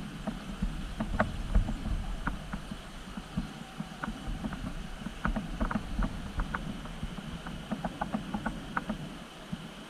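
Radio-controlled scale crawler driving over rock and gravel: a low steady running sound with many irregular sharp clicks and ticks of stones and tyres.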